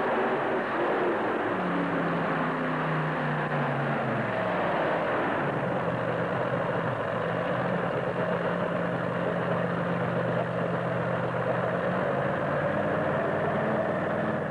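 Modified pulling tractor's engine coming off power at the end of a pull, its pitch falling over a couple of seconds, then running steadily at idle.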